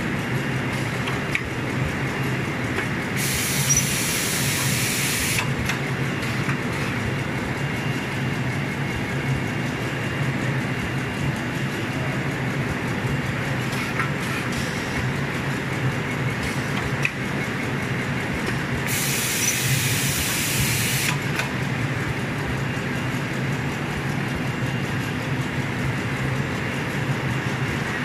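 Pocket tissue production line machinery running steadily, a continuous mechanical clatter and hum. Two bursts of hissing, each about two seconds long, come about three seconds in and again about nineteen seconds in.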